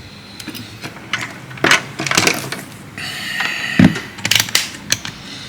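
Small tools and objects handled on a workbench: a scattered series of sharp clicks and knocks, with the loudest knock a little before four seconds in.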